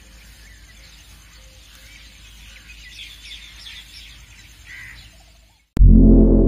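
Bird-chirping ambience, small birds tweeting faintly over a low hum. Just before the end comes one loud, deep, ringing strike that fades away slowly.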